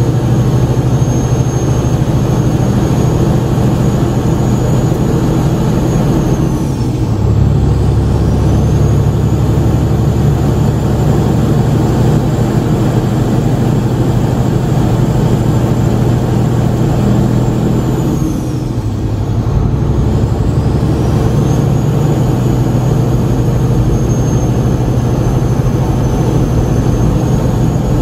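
Semi truck's diesel engine pulling at highway speed, heard from inside the cab, with a high whine over the drone. Twice, about a quarter of the way in and again about two-thirds in, the whine falls away and the engine note drops during a gear change, then the whine climbs back as the engine pulls again.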